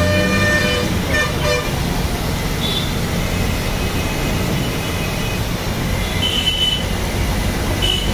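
Steady road-traffic rumble with several short vehicle-horn toots, the longest near the start.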